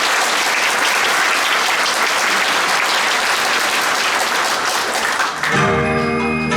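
Audience applauding, then about five and a half seconds in the applause gives way to the instrumental intro of a song with steady, bell-like tones.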